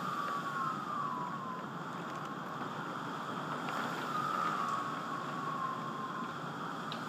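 Emergency-vehicle siren wailing at a distance, its pitch sliding slowly down twice, over a steady hiss.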